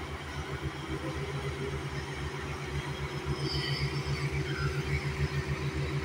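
Hamm HD 99 tandem asphalt roller running and rolling slowly past, its engine giving a rapid, even low pulsing with a steady hum above it. It grows a little louder about halfway through.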